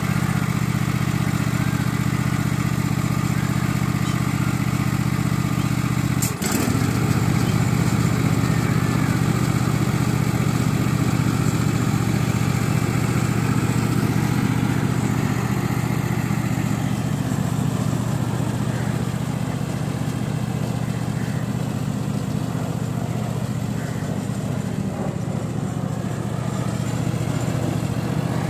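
Cub Cadet ride-on lawn mower's 22 hp petrol engine running steadily. About six seconds in there is a single sharp click, and the engine note briefly dips.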